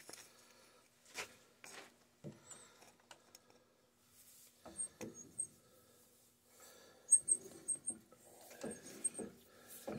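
A Pittsburgh titanium-nitride die being started on a rod by turning the lathe chuck by hand: scattered clicks and light metal knocks with a few faint high squeaks as the die grabs and begins cutting a 5/16-18 thread. The clicks are busiest in the second half.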